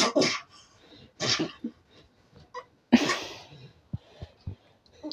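A toddler's excited breathy shrieks and laughs during rough play, three sharp bursts that each die away quickly.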